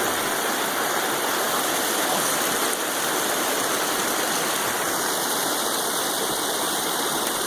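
Fast-flowing river rushing, a steady unbroken sound of water.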